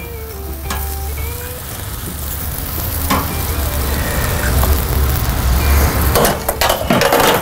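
Italian sausages sizzling on a hot grill grate as they are lifted off with metal tongs, the sizzle building over a low rumble. Near the end comes a quick run of metallic clinks and clatter.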